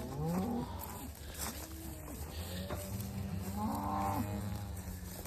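Cows mooing, several calls: a rising moo at the start, a shorter one about a second and a half in, and the loudest, longest moo about three and a half seconds in.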